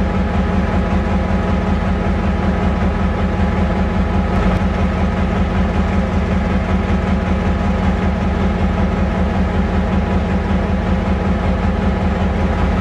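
GM diesel locomotive engine running with a steady, even drone and a strong low hum that holds the same pitch throughout.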